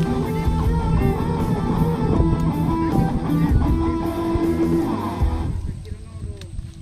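Background music led by guitar, which drops away near the end.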